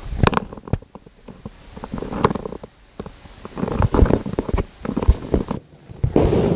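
Close handling noise: a run of irregular knocks, taps and rustles, with a denser stretch of scraping and rustling near the end.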